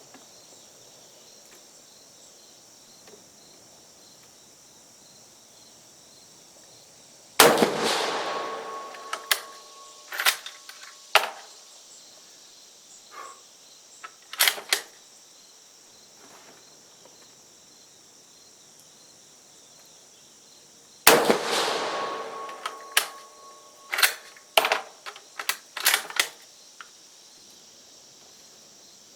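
A Carcano M91TS bolt-action carbine in 6.5mm Carcano firing two shots about 14 seconds apart, each echoing as it dies away, and each followed by several sharp metallic clicks as the bolt is worked to eject the case and chamber the next round. Crickets chirr steadily underneath.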